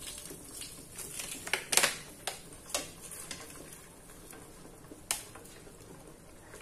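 Ketchup squeezed from a plastic squeeze bottle into an aluminium pot, then a spoon stirring the sauce against the pot, giving a string of sharp clicks and knocks, the loudest a little under two seconds in.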